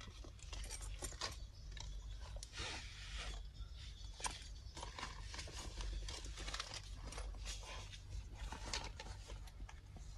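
Handling of a nylon shoulder bag: irregular fabric rustling and small clicks from the strap's metal clips and buckle as the strap is adjusted and the bag set down, over a low steady hum.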